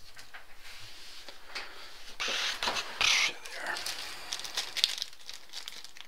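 Plastic card sleeves being handled and pulled from their pack: soft crinkling and rustling with light clicks, and two louder bursts of crinkling about two and three seconds in.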